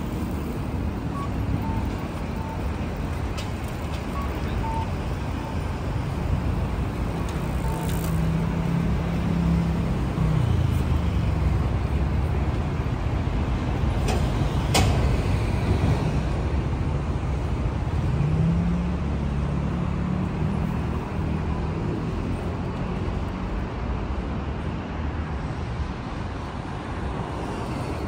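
Street traffic at an intersection: motor vehicles passing with their engines running, one slowing with a falling engine note about a third of the way in and another pulling away with a rising note about two-thirds in. A single sharp click about halfway through.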